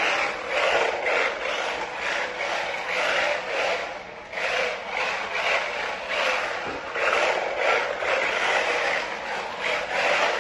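Drift tyres of two 1/16-scale toy RC drift cars sliding on a smooth floor: a hissing scrape that swells and fades about every half second as the cars slide.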